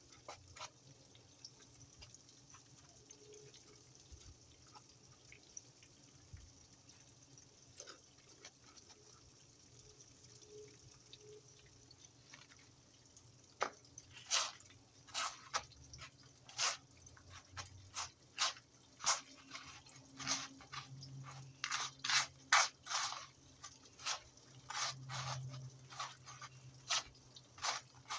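Breadcrumbs on a paper plate crackling and rustling as a hand presses wet, egg-coated pieces of cow brain into them. There are many short, irregular crackles, quiet at first and then frequent and louder from about halfway through.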